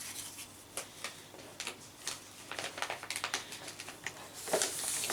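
Hands handling and unwrapping a gift: a scatter of light taps, clicks and rustles, with a louder clatter about four and a half seconds in.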